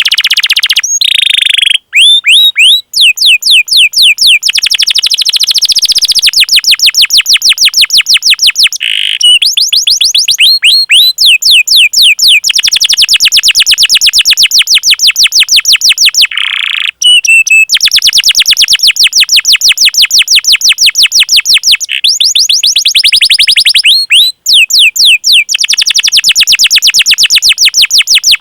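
Domestic canary singing loudly in long rolling trills of rapid, repeated falling chirps, with short breaks and a few held whistled notes between the rolls.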